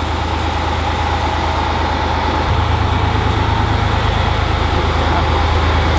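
Excavator's diesel engine running steadily, with a thin steady whine above it; the low hum grows louder about two and a half seconds in.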